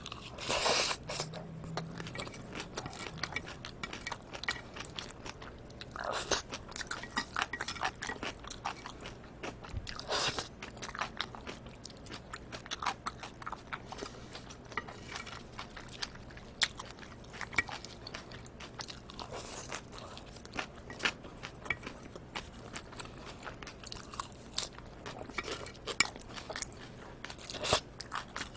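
Close-miked eating of cold bibim noodles with live octopus: steady wet chewing and mouth clicks, with a few louder bursts of biting or slurping every several seconds.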